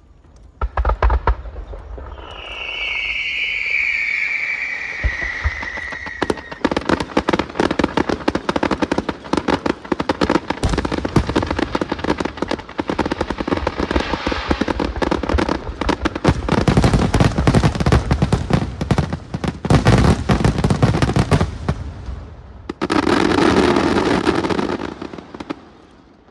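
Fireworks going off. A few bangs come first, then a falling whistle, then a long run of dense, rapid crackling bangs that stops sharply about 22 seconds in, and one last short burst near the end.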